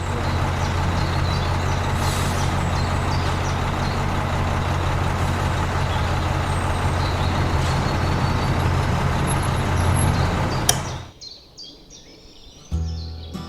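A heavy vehicle engine running steadily with a deep hum and a hiss. It stops about eleven seconds in, just after a sharp click.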